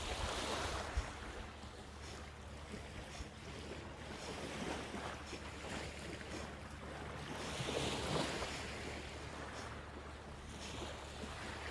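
Sea surf and wind on the microphone: a steady hiss that swells twice as waves wash in.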